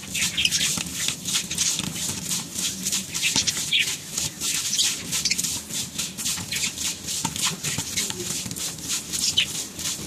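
A hand stirring loose bird seed (millet and sunflower seeds) in a steel bowl, working capsule oil through it: a continuous dry rustle of grains with many small clicks and patters as handfuls are lifted and dropped back in.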